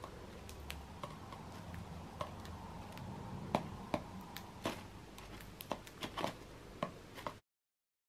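Cockatiels picking at a cardboard cereal box and its shredded paper stuffing with their beaks: scattered sharp clicks and crackles, more frequent in the second half, cutting off abruptly near the end.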